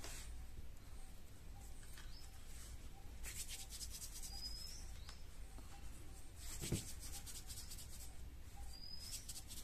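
Hands rubbing and rolling a lump of soft homemade talc-and-flour clay between the palms, giving faint crackly rubbing sounds in three stretches, with a dull thump about two-thirds of the way through.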